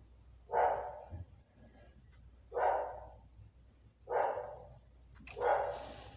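A dog barking, four barks spaced about a second and a half apart.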